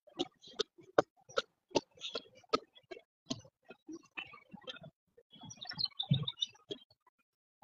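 Footsteps on a wet paved path, about two to three steps a second, with a louder patch of scuffing and rustling about six seconds in.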